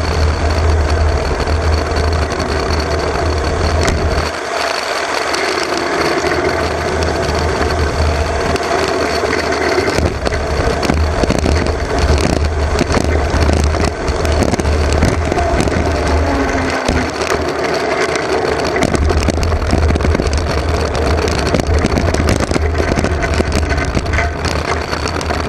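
Engineless soapbox car rolling fast downhill on asphalt: steady rushing wind on the onboard microphone with a heavy low rumble, and the hard wheels and body rattling over the road surface. The low rumble drops away briefly about four seconds in and again around seventeen seconds.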